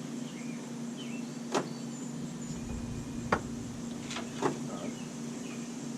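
A steady low hum with a few short sharp clicks scattered through it; the grinder is not running.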